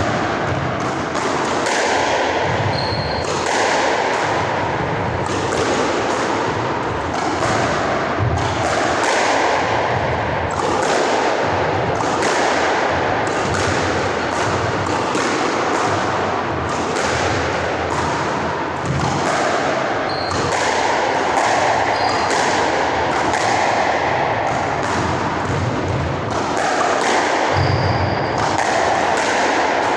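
Squash ball being hit again and again: sharp knocks of racket on ball and ball off the court wall, about one to two a second, over a steady background hiss.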